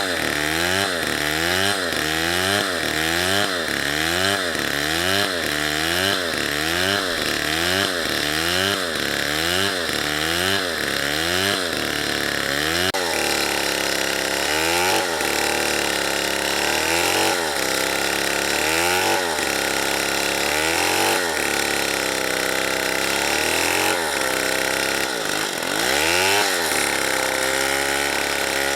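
Two-stroke chainsaw cutting wood, its engine pitch dipping and rising over and over as the chain bogs in the cut and recovers. The swings come quickly at first, then about halfway through they turn slower and wider.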